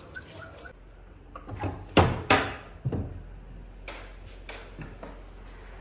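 A wooden door being handled and opened by its metal handle: a few sharp knocks and clicks, the two loudest about two seconds in, then lighter clicks.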